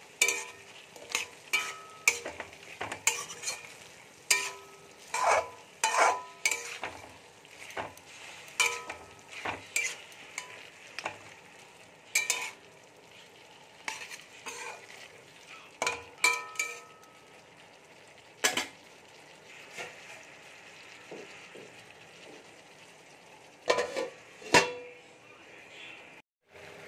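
Steel spatula scraping and clinking against a metal kadai while stirring potatoes, prawns and tomatoes frying in oil, over a faint steady sizzle. The strokes come thick and fast at first and thin out later; near the end a few louder metal clanks as a steel lid goes on the pan.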